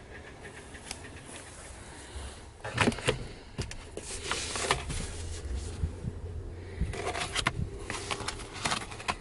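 Handling sounds of a pickup's plastic glove box and its contents: sharp clicks and knocks about three seconds in as the glove box is opened, then rustling and tapping as a fabric owner's manual case and a plastic-bagged spare tire lock key are lifted out.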